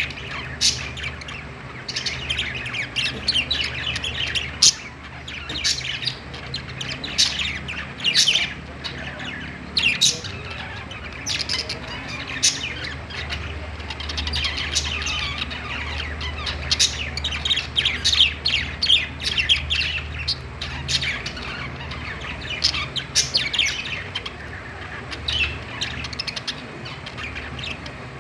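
A group of budgies chirping and squawking together in quick, overlapping short calls, over a steady low hum.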